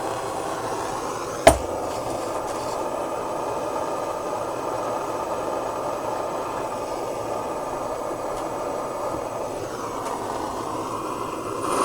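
Hair dryer blowing hot air in a steady, even rush, heating an iron's soleplate to melt a fused solder contact. A single sharp click about a second and a half in.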